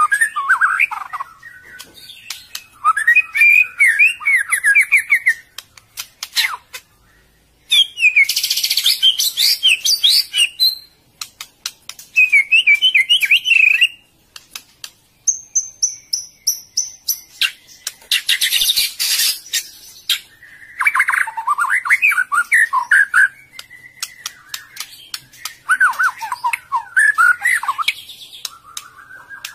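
White-rumped shama (murai batu) in breeding condition singing: loud phrases of rich, varied whistled notes, each one to three seconds long, separated by short pauses, with scattered sharp clicks in between.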